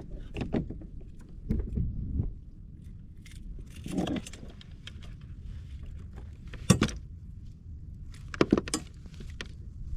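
Jingling and knocking of fishing tackle being handled on a kayak, as a small trout is dealt with after landing, over a steady low rumble of wind on the microphone. There are scattered clinks through the clip, a sharp knock about two-thirds of the way in and a quick cluster of clinks near the end.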